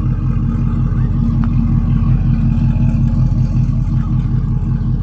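Pickup truck engine running steadily with a low, even drone.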